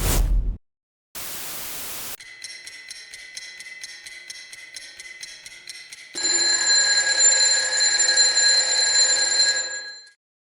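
Synthetic electronic signal tones with static: a short loud burst, about a second of hiss, then rapid, evenly pulsed electronic beeping for about four seconds, followed by a louder steady multi-tone electronic tone that cuts off shortly before the end.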